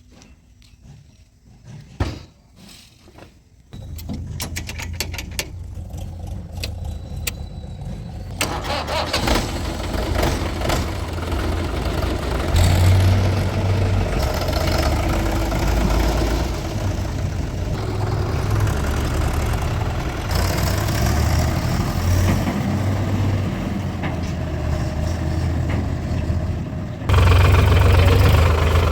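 A few clicks and a sharp knock, then a diesel engine starts about four seconds in and runs with a rapid clatter at first. It grows fuller and louder from about eight seconds in and steps up louder again near the end.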